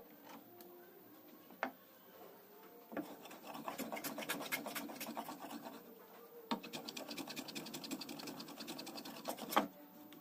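Rapid scraping strokes of a hand tool on a wooden spoon handle, in two runs of about three seconds each, each opening with a sharp knock.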